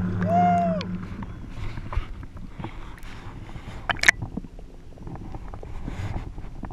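A motorboat engine hums steadily and drops away about a second in, with a short rising-and-falling call over it. After that come scattered small knocks and water noise, the sharpest knock about four seconds in.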